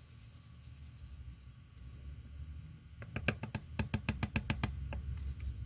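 A quick run of about ten light, sharp taps on a hard surface, coming in under two seconds about halfway through, over a low steady hum.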